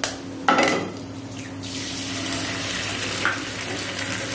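An egg tapped open with a sharp click, then dropped into hot oil, which bursts into sizzling about half a second in and settles into a steady frying sizzle.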